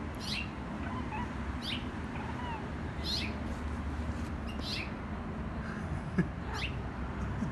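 A small wild bird, which the owner takes for a finch, calling with short, sharp chirps that sweep down in pitch, five of them about every second and a half.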